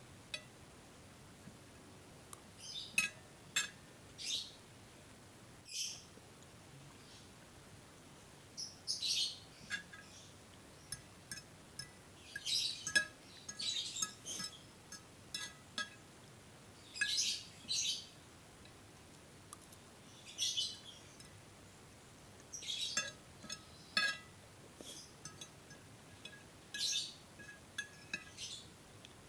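Eating sounds of fried instant noodles: intermittent short slurps and mouth sounds, with light clinks of a utensil against the plate.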